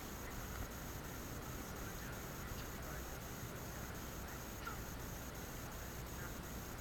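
Steady open-air background hiss with a few faint, short distant calls.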